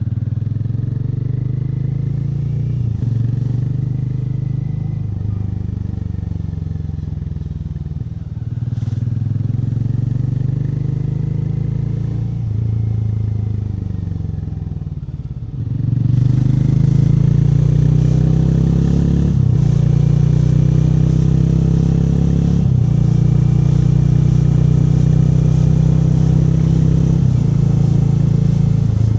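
Hero Mavrick 440's single-cylinder engine on its stock exhaust, a steady rumbling exhaust note. Its pitch climbs and falls back several times as the revs change, and it gets louder about halfway through.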